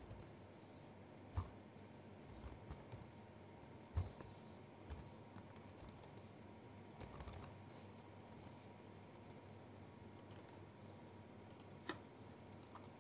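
Faint, scattered keystrokes on a computer keyboard, with a few sharper clicks standing out, and a mouse click near the end.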